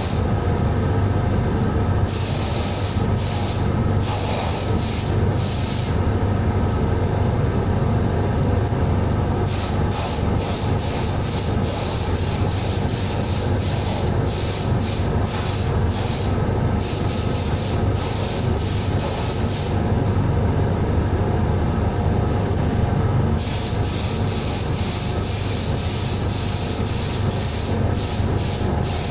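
Compressed-air gun hissing in repeated bursts as the trigger is pulled and released, over a steady low machine hum, with one longer pause in the hissing about two-thirds of the way through.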